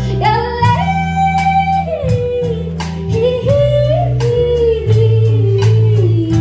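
Live country band playing, with a woman singing long held notes that slide in pitch, over plucked strings, a bass line and drums.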